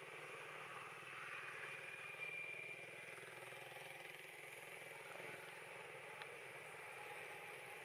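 Faint, steady hum of a distant engine running, with a pulsing low rumble under it and a brief thin high tone about two seconds in.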